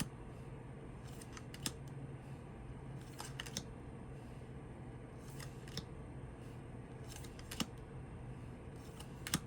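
Tarot cards being handled and turned one by one: light, sharp clicks and snaps of card stock every second or two, over a faint steady hum.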